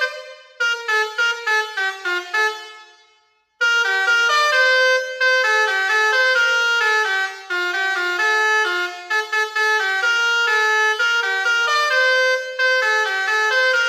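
Basuri V4 21-tone telolet air horn playing a melody as a quick run of stepped notes. One tune fades out about two and a half seconds in, and after a short silence another tune starts sharply about a second later and plays on.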